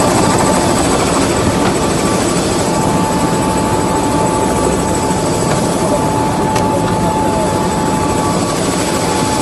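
Military helicopter running on the ground close by, its rotor and turbine noise loud and steady with a high turbine whine throughout.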